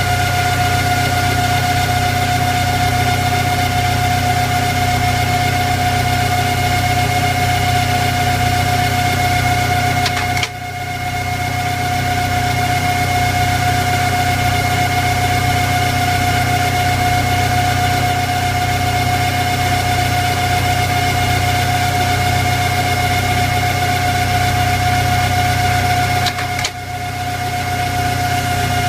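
Screw machine (automatic lathe) running steadily while machining a long pin from bright round steel bar: a constant whine over a low hum. Twice, about ten seconds apart and again near the end, a click is followed by a brief dip in the sound before it picks up again.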